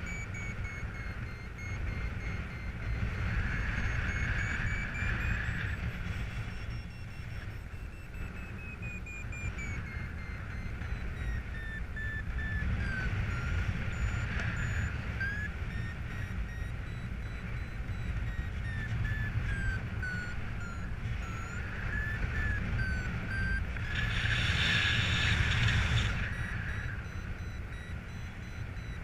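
Paragliding variometer sounding a tone that wanders up and down in pitch, steady at first and later broken into short beeps that rise and fall. The pitch tracks the glider's climb and sink. Under it is a steady rumble of wind on the microphone in flight, with a louder rush of wind a few seconds before the end.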